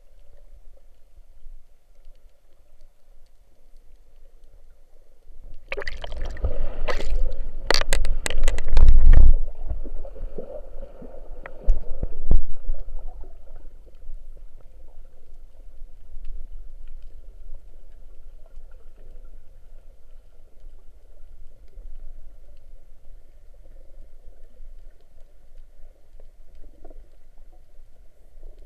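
Underwater sound during a free dive: a quiet muffled background, broken by a loud rush of bubbling, gurgling water with sharp clicks about six to nine seconds in, and another short burst around twelve seconds.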